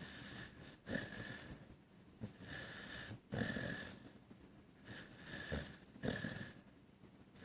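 A sleeping puppy snoring: a run of short snoring breaths, in and out, one every second or so.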